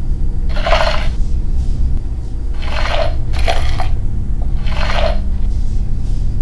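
A wooden Ouija planchette slides across the board in four short scraping strokes, spelling out the spirit's answer, over a low steady drone.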